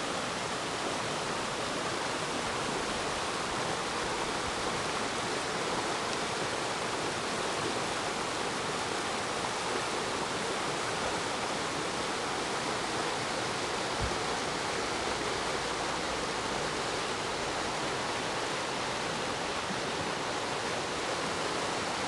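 Clear, shallow river rushing steadily over boulders and small rapids.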